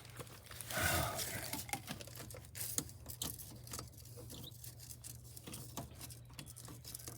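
Faint scattered clicks, taps and light scraping of hand tools and small faucet parts being handled, with a short louder scrape about a second in, over a low steady hum.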